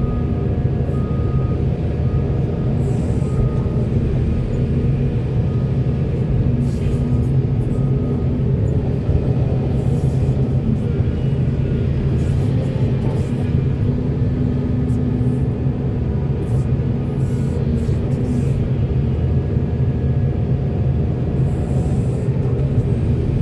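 Heavy diesel construction machinery running steadily with a deep engine hum, its note swelling now and then under load.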